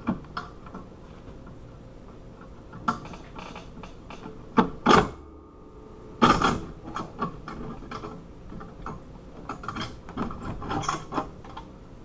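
Metal clicks and clanks from bolt cutters being worked on the shackle of a steel disc padlock, with a cluster of loud sharp clanks near the middle and smaller knocks scattered around them.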